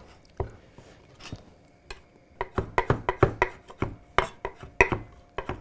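Chef's knife chopping tarragon leaves on a bamboo cutting board. A few scattered light taps come first, then a run of quick knocks of the blade on the board, about four a second, starting about halfway in.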